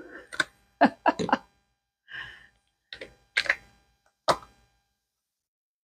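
Short taps and clicks of hard cured resin castings being handled and set down on a stone countertop, about eight of them over four seconds.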